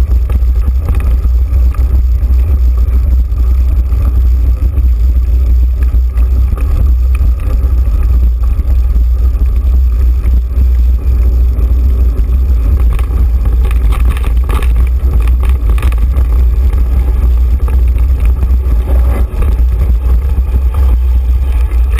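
Loud, steady low rumble of wind buffeting an action camera's microphone while riding a mountain bike down a dirt trail, with the rough crunch of knobby tyres on gravel and dirt; the crunching gets louder about two-thirds of the way through.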